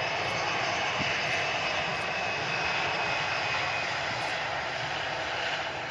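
Boeing 757 jet engines running with a steady roar and a high whine in it that fades out about four seconds in.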